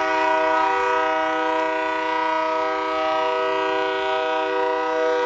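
Union Pacific locomotive air horn blown during locomotive testing, held as one steady chord of several notes, heard from inside a building.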